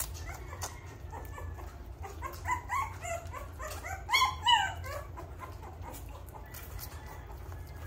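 Three-week-old American bully puppy whimpering in a string of short, high cries, loudest about four seconds in.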